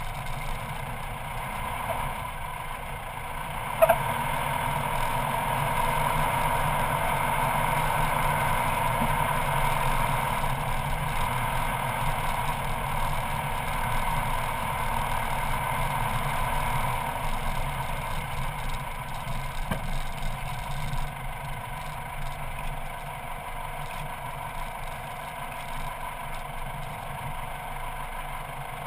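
Four-wheel-drive vehicle's engine and running noise as it drives slowly over a rough dirt track, with a sharp knock about four seconds in.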